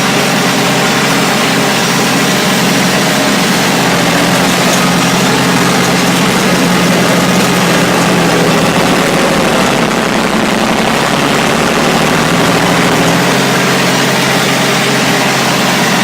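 Bulldozer engine running loud and steady.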